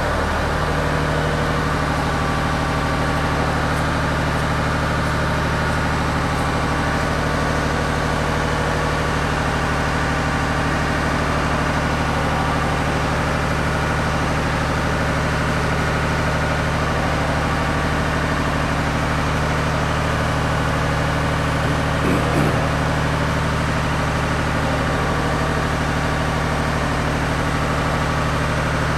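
Genie articulating boom lift's power unit running with a steady low hum as the boom slowly raises its load. A brief knock sounds about two-thirds of the way through.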